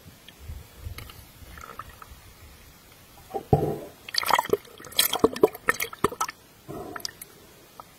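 Sea water splashing and sloshing around a camera as it breaks through the surface, in loud irregular bursts with sharp crackles starting about three and a half seconds in, after faint low rumbles.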